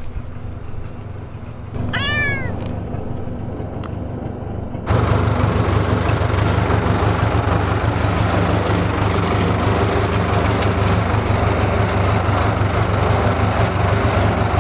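A cat meows once, about two seconds in. From about five seconds in, a Case 580 backhoe's diesel engine idles steadily, and it is the loudest sound.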